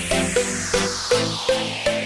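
Electronic dance music with a steady beat, short plucked synth notes and a sweeping rise in the highs.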